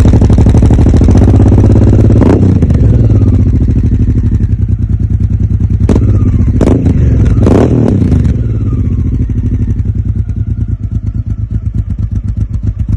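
Honda Africa Twin 750's V-twin engine running through an Arrow aftermarket exhaust, with a few quick throttle blips in the middle, then settling back and easing toward idle near the end.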